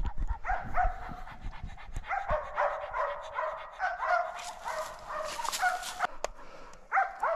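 Hunting laikas barking at bay at a wounded bear: a steady run of barks, about three a second, with a short break near the end.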